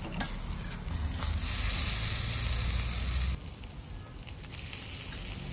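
Food sizzling on a tabletop barbecue grill: sausages, a scallop in its shell and sliced vegetables cooking over the heat, a steady hiss that cuts off abruptly about three seconds in, leaving a quieter background.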